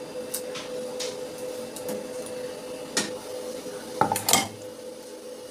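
Chopped onion and tomato scraped off a wooden chopping board into a pressure cooker, with a few light knocks and a louder clatter of kitchenware about four seconds in. A faint steady hum runs underneath.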